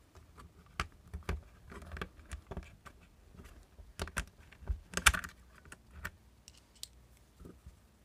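Small metal screwdriver bits clicking and rattling against a plastic bit case as a larger Torx bit is picked out and swapped into the screwdriver: an uneven scatter of sharp clicks, the sharpest about five seconds in.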